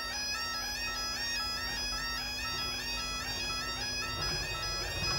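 Automatic half-barrier level crossing warning alarm: an electronic yodel alarm sounding continuously in a rapid repeating warble while the barriers are down, warning of an approaching train.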